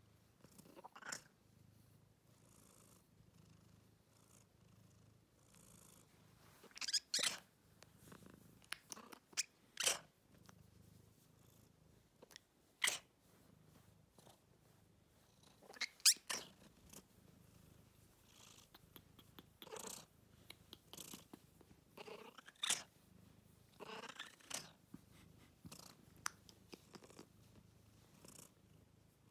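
Domestic cat purring steadily as a soft low rumble, with scattered short clicks and rustles over it.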